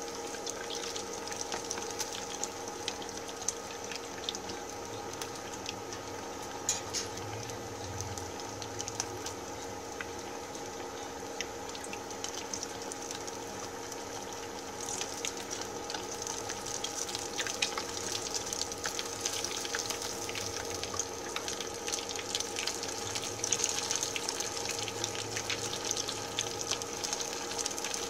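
Breaded cheese sticks deep-frying in a pot of hot oil: a steady sizzle with scattered crackles and pops, a little louder from about halfway through. A faint steady hum runs underneath.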